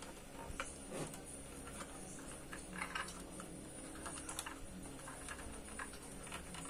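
Faint, irregular small clicks and taps of fingers handling parts and connectors on a power amplifier's circuit boards, over a low steady hum.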